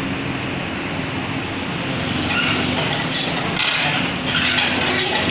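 Komatsu PC200 crawler excavator's diesel engine running steadily as the machine crawls up onto a tilted truck bed, with bursts of hissing, scraping noise from about two seconds in.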